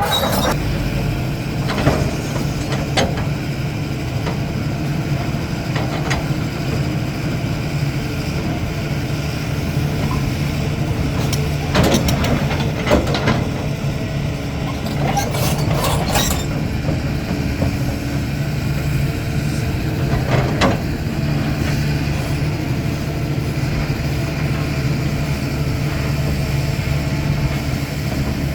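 CAT 320D excavator's diesel engine running steadily under load while digging, with sharp clanks and knocks of the bucket and rock every few seconds, several close together around the middle.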